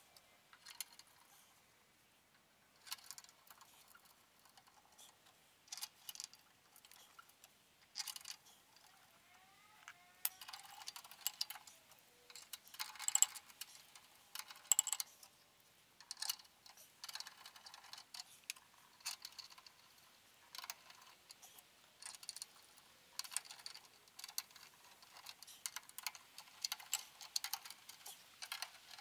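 Irregular light clicks and metallic clinks of hand tools and parts being handled while the heater's manifold is fitted, loudest about halfway through.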